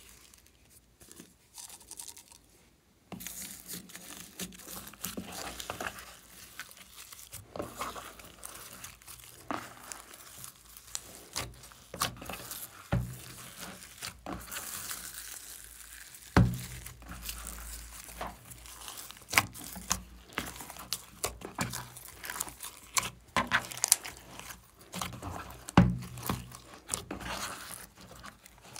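Hands squishing and mixing slime with foam beads and plastic sprinkles: a sticky crackling with frequent small clicks and pops. It starts about three seconds in, after a near-quiet start.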